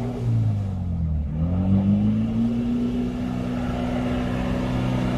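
Off-road 4x4's engine running under load: its pitch drops about a second in, climbs over the next second and then holds steady at high revs.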